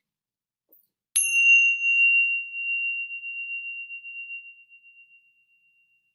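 A small bell struck once about a second in, ringing a single high tone that fades out over about four seconds.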